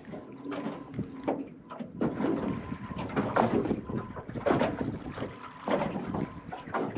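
Small waves slapping irregularly against the aluminium hull of a Stabicraft 1450 boat, with wind buffeting the microphone.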